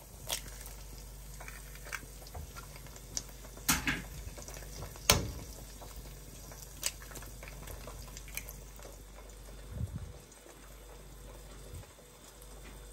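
Eggs frying in holes cut in bread slices in a nonstick pan: a steady sizzle with small crackles, broken by several sharp clicks or taps, the loudest about five seconds in.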